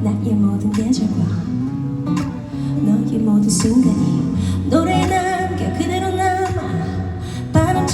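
Pop song with plucked guitar and a steady bass line; a female voice begins singing the melody about five seconds in.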